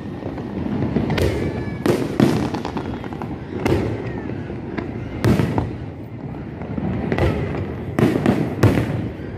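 Aerial fireworks bursting overhead: a string of sharp bangs, roughly one a second, over a continuous low rumble from the display.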